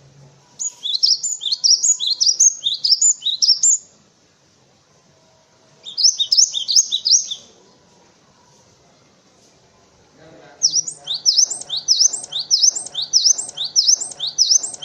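Gelatik batu (cinereous tit) singing in three bouts of rapid, high, down-slurred chirps. The first bout starts just after the beginning and lasts about three seconds, a short bout comes near the middle, and a longer one fills the last third.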